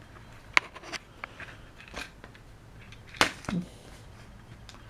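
Light handling noise: a few scattered clicks and crinkles, the strongest a little after three seconds in.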